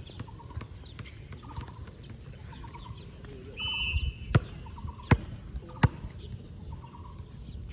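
Short squeaks repeat about every half second, like sneaker soles on a court floor. A brief whistle blows about three and a half seconds in, followed by three sharp ball impacts less than a second apart.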